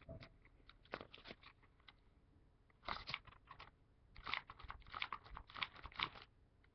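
Folded paper crinkling and crackling as hands handle and twist an origami hexagonal flasher, in clusters of short rustles that are busiest from about three seconds on.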